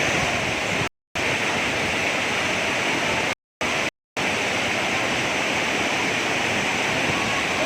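Steady rush of a waterfall, a dense hiss of falling water. It cuts out to silence three times briefly, about a second in and twice around three and a half to four seconds.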